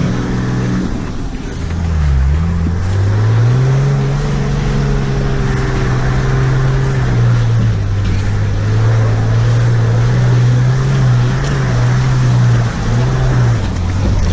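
Nissan GQ Patrol's TD42 4.2-litre straight-six diesel engine pulling up a rough dirt track, heard from inside the cab. Its pitch climbs a few seconds in, holds, and drops near the end, with knocks and rattles from the truck jolting over the ruts.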